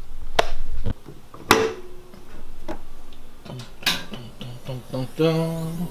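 The hood of a Chevrolet Camaro SS being unlatched and lifted: a few sharp metallic clicks and knocks from the hood latch and hood, with handling rumble in the first second. A short steady pitched hum sounds near the end.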